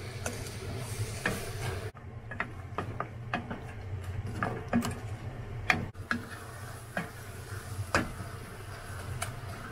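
Wooden spatula stirring chopped kumquats and sugar in an enamel pot for jam, with irregular scrapes and knocks against the pot, over a steady low hum.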